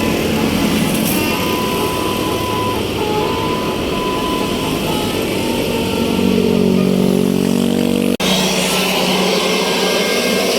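Bus engine running as it passes, growing louder with a steady pitched drone about six seconds in. A sudden cut about eight seconds in switches to another stretch of vehicle noise.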